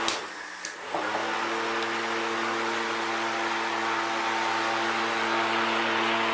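Small 12 V DC motor driving a plastic fan blade in a homemade evaporative cooler, running steadily with a humming whir and a rush of air. It dips briefly with a couple of clicks in the first second, then runs steady.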